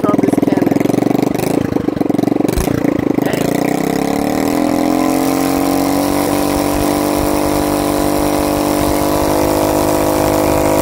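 Small single-cylinder vertical-shaft engine running through a homemade heat-wrapped muffler. It idles choppily at first, then picks up speed about three to four seconds in and holds a steady, slightly louder run.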